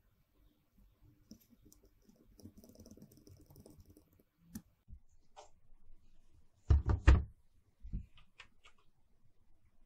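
Screwdriver turning small screws into the power-supply heatsink bracket of a mixer, faint scraping and metal clicks, followed about seven seconds in by a quick cluster of heavy knocks from handling, the loudest sounds here, and a few light clicks.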